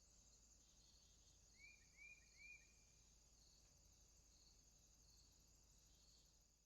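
Faint, steady insect chorus with a short chirp repeating about once a second, and three quick chirps close together about a second and a half in.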